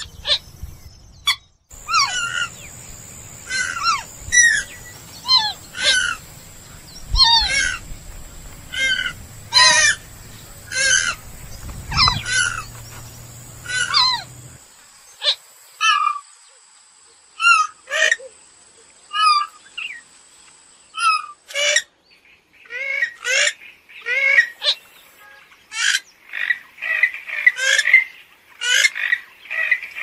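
Purple gallinule (kalim) calling: a series of short, loud, downward-sweeping calls about once a second. About halfway the background hum cuts off suddenly and the calls grow faster and denser toward the end.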